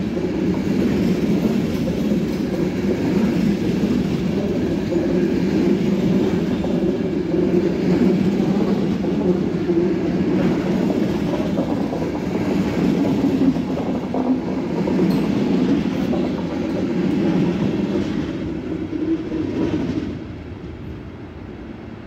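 Loco-hauled passenger coaches rolling past on the station tracks: a steady noise of wheels on rails. It falls away about twenty seconds in as the last coach clears.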